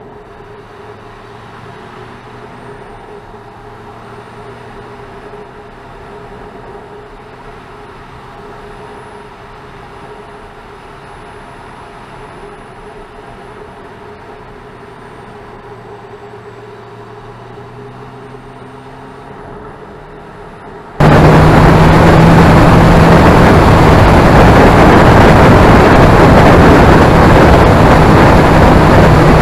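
Kawasaki ZZR 1400's inline-four running at a steady cruise, heard first through a helmet camera's waterproof case as a muffled, steady engine drone with wind. About two-thirds of the way in it cuts abruptly to a much louder rush of wind and engine from a camera mounted on the fairing.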